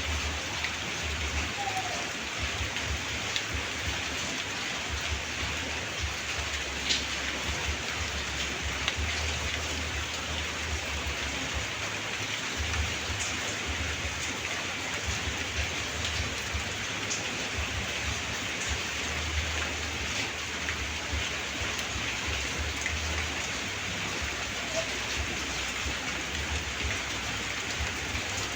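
Light rain falling steadily, a continuous hiss with scattered sharper drips and a low, uneven rumble underneath.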